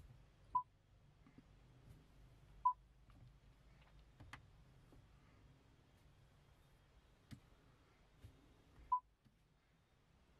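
Mahindra XUV300 touchscreen infotainment unit giving three short single-pitch key-press beeps as its buttons and screen are pressed, with a few faint clicks between them.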